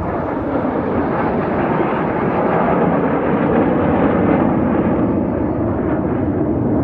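Formation of jet aircraft passing overhead: a steady engine roar that swells slightly around the middle.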